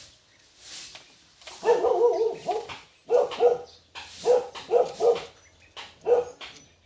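A dog barking repeatedly in short, quick runs of barks, starting about a second and a half in and stopping shortly after six seconds.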